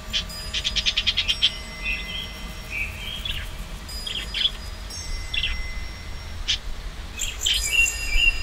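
Birds chirping and calling. A quick run of sharp chirps comes in the first second and a half, then scattered short calls, then a busier cluster of chirps near the end, over faint steady tones.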